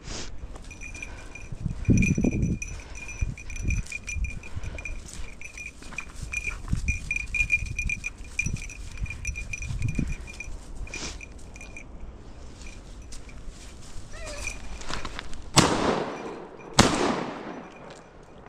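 Two shotgun shots fired about a second apart near the end, each sharp and loud with a short echoing tail. Before them, a steady high-pitched tone runs over scattered low thuds.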